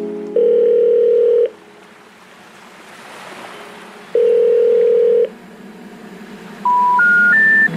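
Telephone line tones: two long ringback tones a few seconds apart with a soft hiss swelling between them, then three short beeps stepping up in pitch. The three rising beeps are the special information tone that comes before a 'number not in service' recording.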